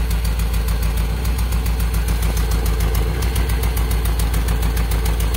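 Toyota Soluna's four-cylinder engine idling with a misfire, heard at the tailpipe as a steady 'blub blub blub' exhaust puffing. The misfire is traced to cylinder 2, and a faulty spark plug lead is suspected.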